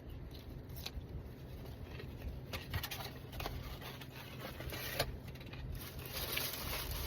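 Quiet eating sounds: a few soft clicks and scrapes from handling food and its takeout container, over a steady low hum.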